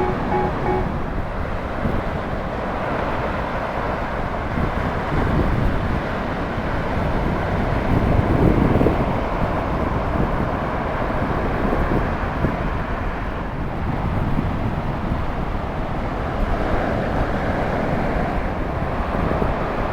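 Ocean surf rushing steadily on the beach, with wind on the microphone; the wash swells briefly about eight seconds in.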